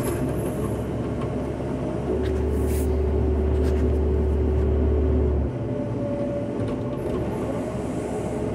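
Cat 311 hydraulic excavator's diesel engine and hydraulics running, heard from inside the cab, with a low drone and a thin steady whine. About two seconds in the machine comes under heavier load and the drone grows deeper and louder, then it eases off suddenly about five and a half seconds in.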